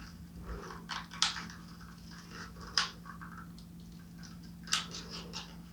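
Scattered small clicks and scratchy rustles of hands handling small plastic toy figures and their packaging, with a few sharper clicks, over a faint steady low hum.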